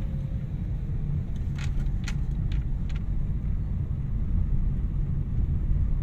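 Car cabin noise while driving: a steady low rumble of engine and tyres on the road, with a few light ticks in the first half.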